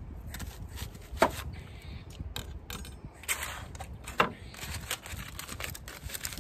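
Chef's knife cutting an onion on a wooden cutting board: two sharp knocks of the blade on the board, about a second in and again about four seconds in, with fainter cutting clicks and rustling of the onion between them.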